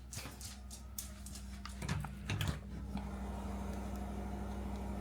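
Steady low machine hum, with a few knocks and handling rustles in the first three seconds.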